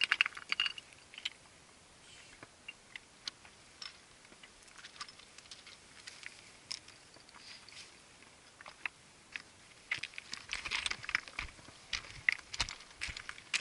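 Hikers' boots stepping and scraping on rock slabs and loose scree, with stones clicking and crunching underfoot; the steps come thickest at the start and again from about ten seconds in.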